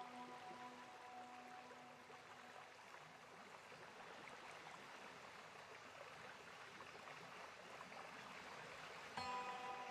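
Faint steady hiss. A held background-music chord dies away over the first two or three seconds, and the music comes back abruptly near the end.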